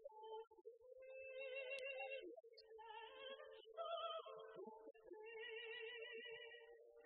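Quiet music: a slow melody of long, wavering held notes.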